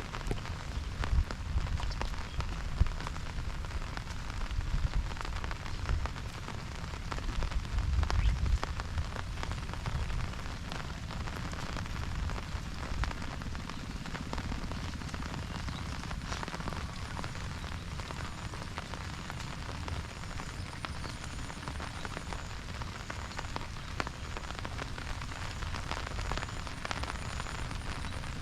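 Steady rain falling, a dense hiss of countless drops pattering on an umbrella and the wet ground, over a low rumble that is heavier in the first several seconds.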